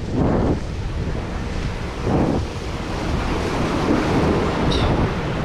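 Wind buffeting the microphone over waves washing against the rocks of a stone jetty, with a couple of louder surges near the start and about two seconds in. A brief high chirp comes near the end.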